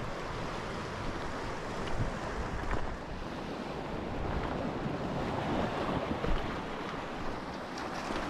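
Sea surf washing steadily against a rocky shoreline, with wind buffeting the microphone.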